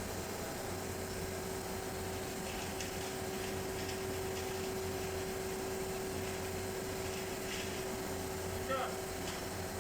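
Steady machine hum with one held tone, and a brief rising squeak near the end.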